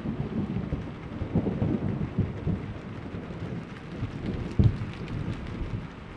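Thunder rumbling over steady rain, the rumble dying away, with a brief louder low crack about four and a half seconds in.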